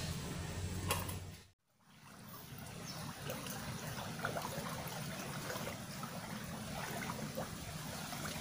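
Small river's water trickling and running steadily, with faint scattered clicks. The sound cuts out completely for a moment about one and a half seconds in.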